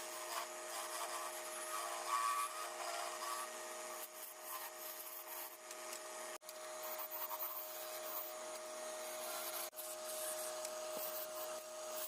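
A tool rubbing and rasping against wood, continuous and scratchy, over a steady machine hum, breaking off for an instant twice.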